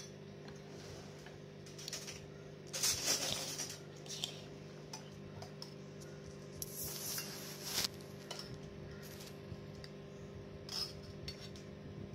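Light clinks of a spoon against dishes and a ceramic plate, with two short scraping, rustling sounds about three and seven seconds in, over a steady low hum.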